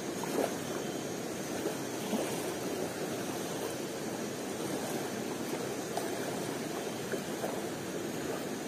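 Steady rushing water of a forest stream, with a few faint ticks on top.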